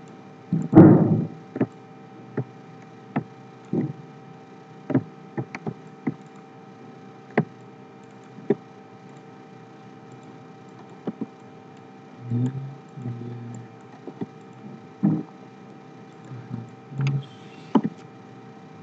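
Irregular clicks of a computer mouse and keyboard, about twenty in all, with a louder knock about a second in, over a steady electrical hum.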